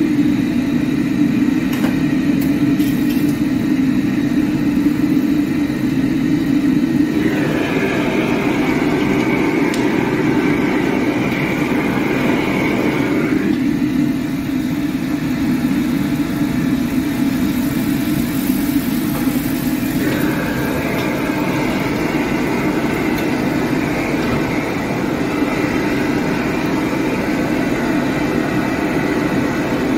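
Steady roar of a commercial wok range's high-heat gas burner. A brighter, hissier layer joins the roar about seven seconds in, drops out around thirteen seconds, and comes back around twenty seconds.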